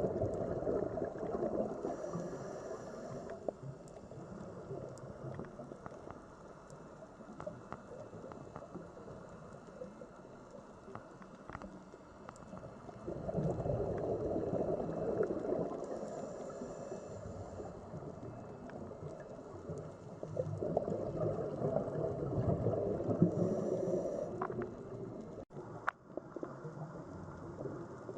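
Sea water ambience: a low rushing, gurgling water noise that swells and eases in slow surges every several seconds.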